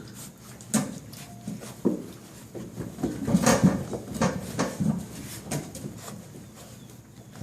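Hound mix puppies playing: a run of knocks, bumps and scuffles, busiest around the middle.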